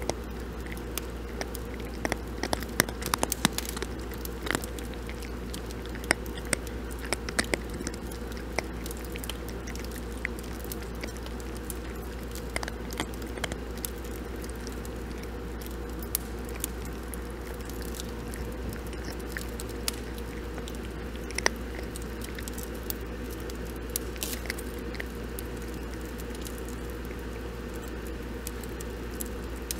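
Cats crunching and chewing dry kibble from a bowl, close up: irregular sharp crunches, thickest in the first several seconds, over a steady low hum.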